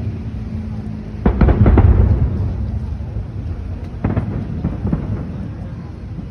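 Aerial fireworks shells bursting with deep booms over a continuous low rumble. Two louder bursts with crackle come about a second in and about four seconds in.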